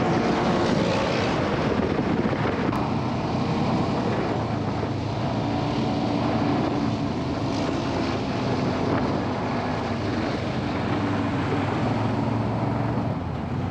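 Off-road UTV's engine running steadily while driving, with a continuous rush of wind noise.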